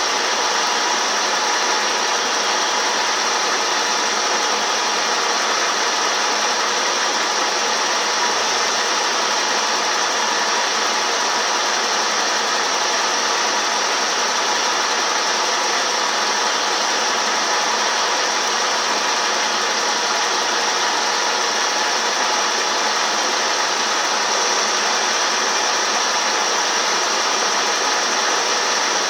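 CNC milling machine running steadily while turning a part, a constant machining noise with a steady high whine over it.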